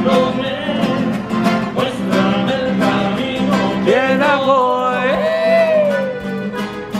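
Music of plucked strings with a singing voice. A long sung note slides up and then falls away between about four and six seconds in.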